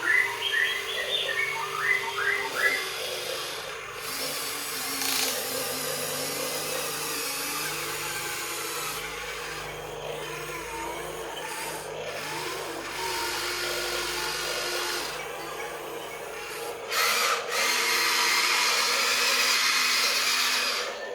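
Radio-controlled excavators' small electric motors whirring as they work, their pitch shifting up and down, with scraping underneath.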